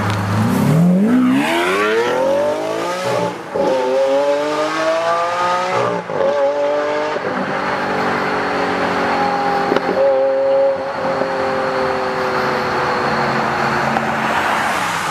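Lamborghini Aventador's V12 accelerating hard. The revs climb with gear changes about three and a half and six seconds in, then the engine note falls slowly as the car drives away.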